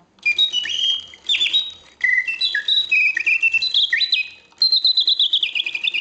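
Antique Bontems singing birdcage automaton playing its mechanical bird song: bellows-blown piston whistle chirps, fast trills and sliding notes in several phrases with short breaks between them.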